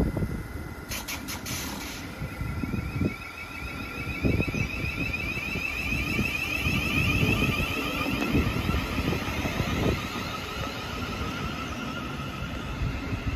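Passenger train running at the station: a low rumble, with wind buffeting the microphone, a few sharp clicks about a second in, and a steady high whine with a warbling tone that grows through the middle and fades near the end.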